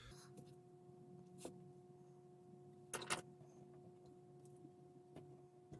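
Near silence: a faint steady hum with a few light clicks, the loudest a quick pair about three seconds in.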